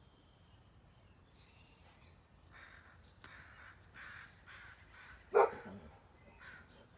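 Dogs barking: a run of faint, quick barks starting a couple of seconds in, then one loud bark near the end.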